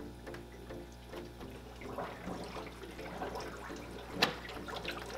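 Water siphoning through the hoses into an Aquatop Forza canister filter as it fills after being primed, running and gurgling with air bubbles. A sharp click about four seconds in.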